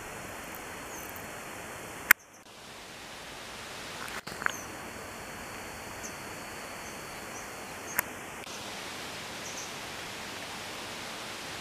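Steady outdoor hiss with faint, scattered bird chirps. Sharp clicks come about two, four and eight seconds in; the first is followed by a brief drop in the background.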